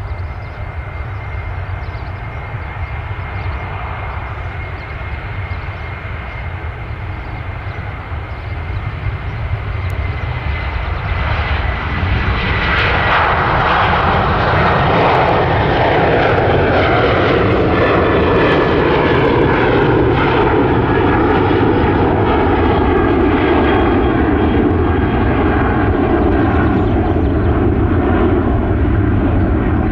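Jet airliner engines passing close: a high fan whine and low rumble that swell sharply about twelve seconds in to a loud, steady roar, its whining tones slowly falling in pitch.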